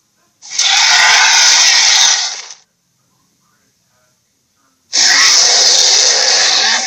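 Two loud, harsh, raspy roars made as monster sound effects, the first lasting about two seconds and the second starting about five seconds in.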